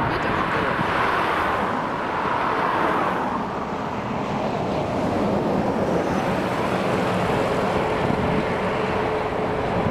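Road traffic passing on a two-lane road: a car drives by in the first few seconds, then a double-decker bus goes past, its engine adding a steady hum in the second half, over continuous wind noise on the microphone.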